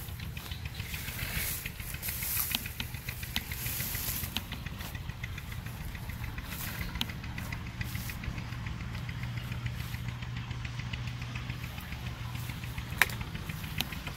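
An engine running steadily at idle with a fast, even knocking tick. Leaves and branches rustle during the first few seconds, and there is a single sharp click near the end.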